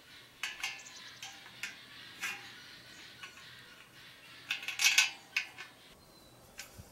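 Steel carport frame tubes clinking and knocking against each other as they are fitted together. There are scattered light clinks, then a louder cluster of rattling clinks about two-thirds of the way through.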